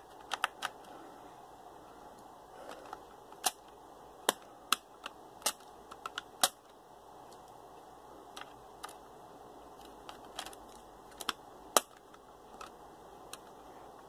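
Irregular sharp clicks of a Phillips screwdriver loosening the memory-bay cover screw on a Dell Latitude D630, its metal tip clicking in the screw head against the laptop's metal base.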